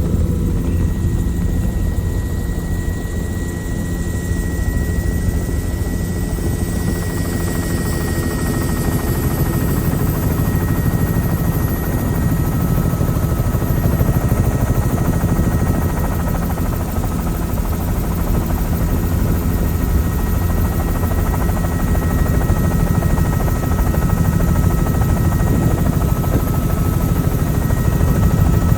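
Helicopter in flight heard from on board: a steady low rotor beat under engine noise, with thin high whines held throughout, getting a little louder near the end.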